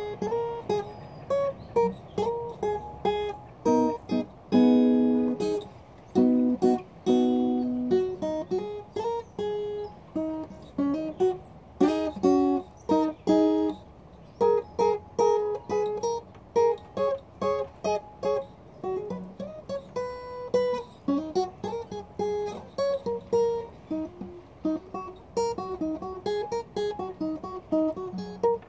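Solo acoustic guitar: strummed chords in the first several seconds, then picked single notes stepping up and down the neck in a continuous melody.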